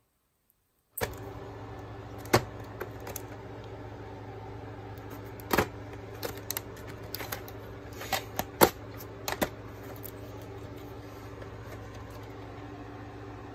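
Plastic VHS tape case being handled and opened: a series of sharp plastic clicks and clacks, loudest about two and a half, five and a half and eight and a half seconds in. Under it a steady low electrical hum starts about a second in.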